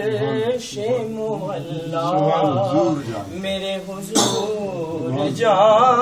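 A man's solo voice chanting an Urdu naat, a devotional poem, in long wavering held notes with brief pauses for breath.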